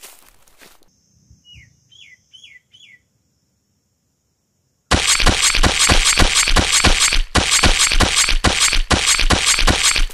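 A few faint chirps, four short falling bird calls, then after a brief silence a loud run of rapid gunfire, about three or four shots a second, that lasts to the end: a stock automatic-weapon sound effect.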